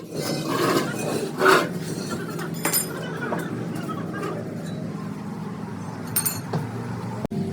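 Metal tools and parts clinking on metal, with a couple of short scrapes early on and two sharp ringing clinks later, over a steady low machine hum.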